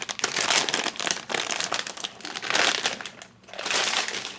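Blind-bag packaging crinkling and rustling as it is handled, in bursts with short pauses about a second and about three seconds in.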